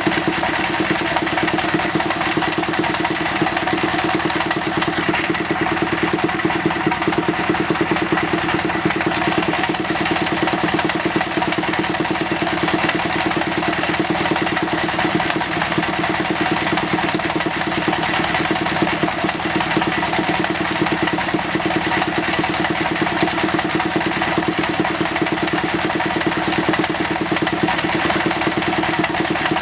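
A workshop machine's motor running steadily, an even hum that holds constant with no change in speed.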